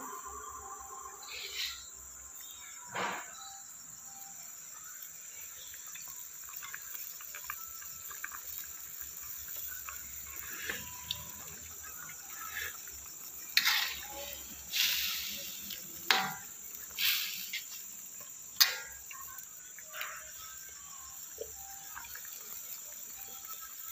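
Steady high-pitched cricket trilling, with pork curry simmering in a steel wok over a gas burner. Several short, sharp sounds stand out between about 13 and 19 seconds in.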